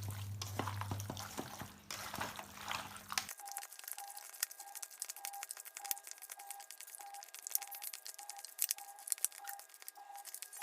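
Raw chicken pieces being mixed by hand with spice paste and lemon juice in a bowl: soft wet squelches and irregular small clicks and crackles.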